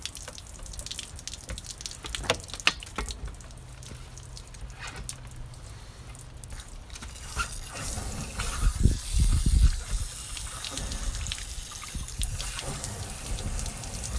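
Water splashing and dripping out of an RV water heater's drain opening while the tank is flushed with a hose-fed rinsing wand and its pressure-relief valve is open, carrying out loosened mineral deposits. The flow gets louder about seven seconds in, with a low rumble.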